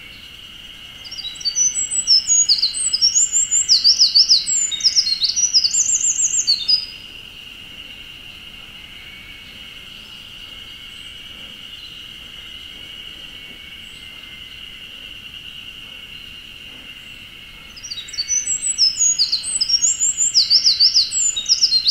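Eurasian wren singing: two long song bouts of fast, high trills and warbles, each lasting about six seconds, one starting about a second in and the next near the end. A steady high-pitched hum runs underneath.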